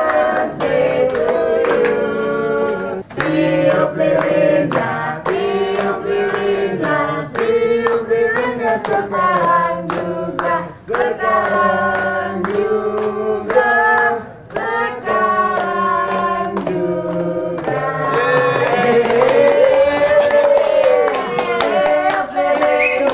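A group of people singing a birthday song together while clapping along in a steady rhythm.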